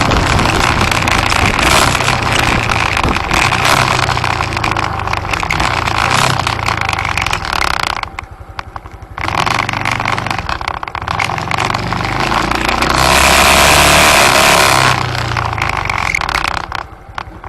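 Road vehicle on the move: the engine hums low under a loud, steady rush of wind and road noise, its pitch rising and falling with speed. The rush drops off sharply for about a second around eight seconds in, and again near the end.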